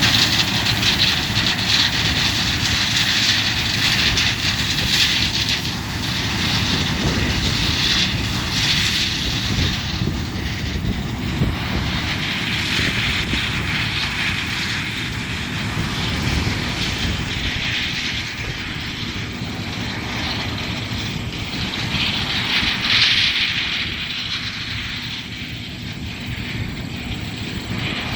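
Combine harvester running steadily while harvesting corn, a continuous engine rumble with a hissing whir that swells and fades every few seconds.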